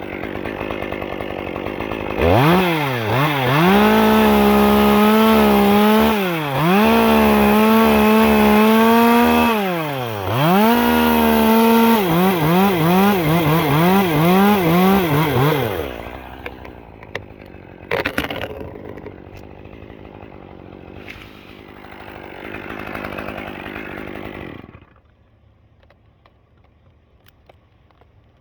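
Two-stroke chainsaw idling, then revved to full throttle about two seconds in, with two brief drops in revs and a stretch of wavering revs before it falls back about halfway through; much quieter sound follows.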